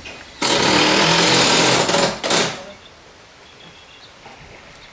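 A power tool starts suddenly and runs loud for about a second and a half, then stops. It gives one more short burst.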